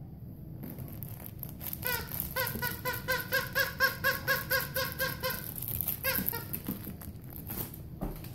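Squeaker inside a plush pink pig toy squeaking over and over while a dog chews it: a fast, even run of about four squeaks a second lasting a few seconds, then a couple more squeaks.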